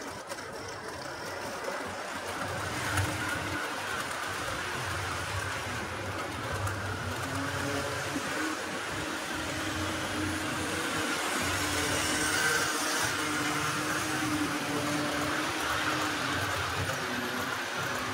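HO scale model trains running on the layout track, with a steady electric motor hum and the rattle of wheels on the rails. It grows gradually louder as the trains come closer.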